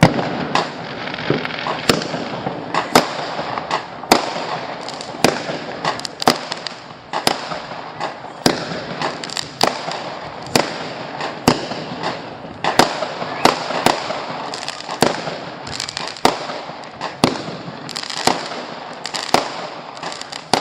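Fireworks going off: a sudden, continuous barrage of sharp bangs, one or two a second, over a steady crackle.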